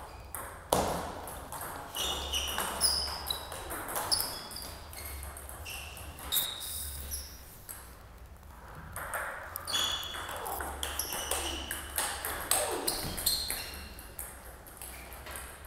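Table tennis rallies: the ball clicks off paddles and the table in quick succession. Short high squeaks of shoes on the floor come in between.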